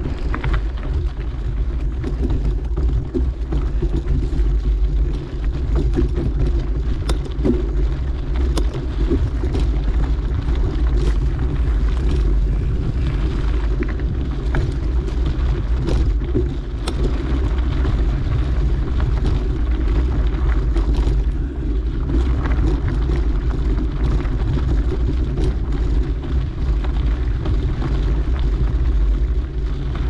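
A mountain bike being ridden along a dirt trail: a steady low rumble of tyres and wind buffeting the microphone, with scattered clicks and rattles.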